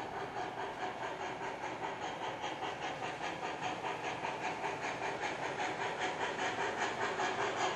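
Sound system of an HO-scale MTH Challenger model steam locomotive: a fast, steady hissing chuff at about five beats a second, growing slightly louder as the unseen train approaches.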